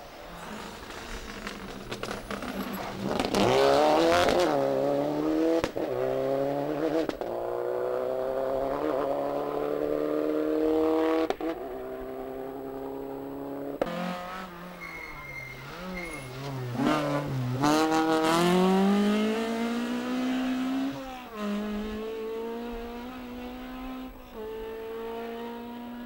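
Rally cars passing at speed one after another. The engines rev up and drop back repeatedly through gear changes, loudest as each car goes by. First comes a Subaru Impreza, then a second car about halfway through.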